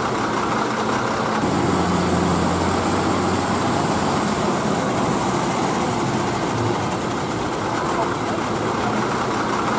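Diesel engine of a heavily loaded multi-axle lorry running steadily at low speed as it crawls along a rutted mud road, with people's voices in the background.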